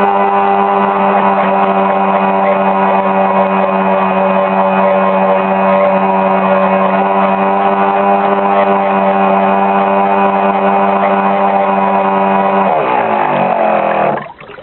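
Riva motor launch's motor running at a steady pitch, heard from on board. About thirteen seconds in it winds down, falling in pitch, and cuts off just before the end.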